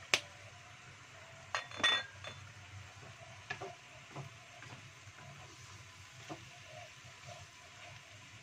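A sharp clink just at the start and a ringing glass-on-metal clink about two seconds in as the glass soy sauce bottle knocks against the wok and is taken away, then a wooden spatula stirring in a non-stick wok of simmering sauce with scattered light knocks over a faint sizzle.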